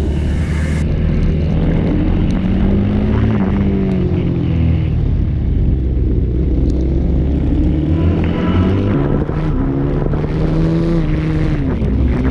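Supermoto motorcycle engine racing, its pitch climbing and dropping repeatedly as the throttle is opened and closed through gear changes and corners.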